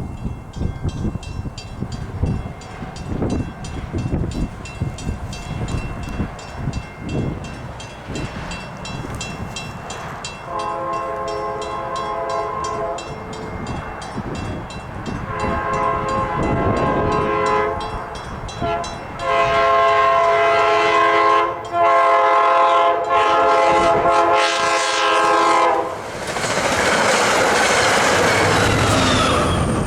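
Wind buffeting the microphone, then a passenger train's locomotive air horn sounding four long multi-note blasts as the train approaches. It ends in the loud rush of the train passing close by.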